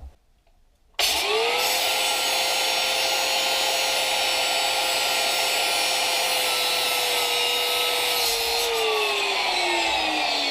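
Electric power tool spinning up about a second in and running at a steady high whine over a harsh hiss, then winding down near the end, its pitch falling.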